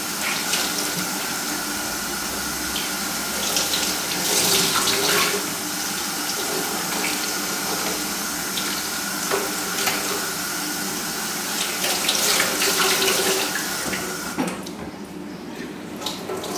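Kitchen tap running into a stainless steel sink while dish cloths are washed by hand under the stream. The water cuts off about two seconds before the end.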